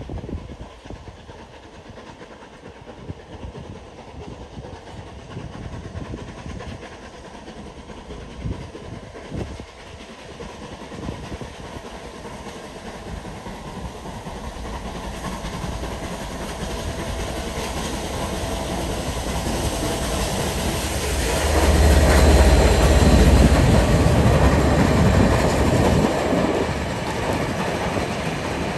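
Steam locomotive Clan Line, a rebuilt Southern Railway Merchant Navy class Pacific, approaching and passing with a train of Pullman coaches: the train noise grows steadily louder as it nears and is loudest about two-thirds of the way in. Wheels clatter on the rails as the engine and coaches run by.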